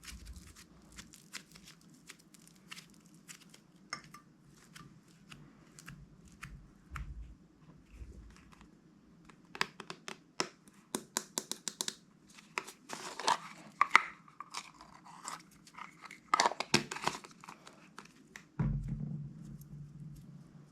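Slime being kneaded, stretched and pressed by hand, giving many small sticky clicks, pops and crackles that grow denser and louder about halfway through, with a soft low thud near the end.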